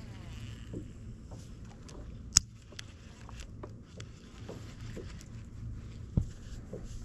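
Fishing gear being handled aboard a plastic kayak: scattered small clicks and knocks, with a sharp click about two and a half seconds in and a dull thump on the hull a little after six seconds.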